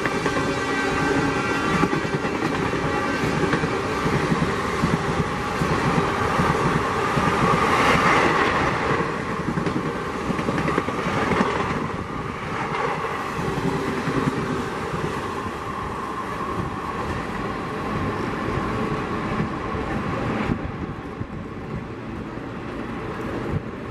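Indian Railways express passenger coaches passing close at speed, a dense rushing noise with the clatter of wheels over the rails. About twenty seconds in, the sound drops abruptly to a quieter, more distant rumble.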